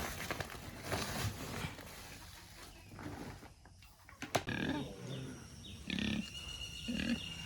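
Pigs grunting in short, low grunts, mostly in the second half, after a single sharp knock about four seconds in.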